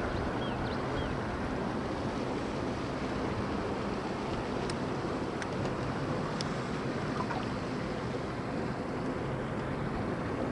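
A boat motor running steadily under way, with wind and water rushing past.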